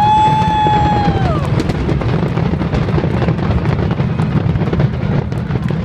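Fireworks finale with many shells bursting close together, a continuous deep rumble with dense crackling throughout. A high held tone rises, holds and falls away in the first second and a half.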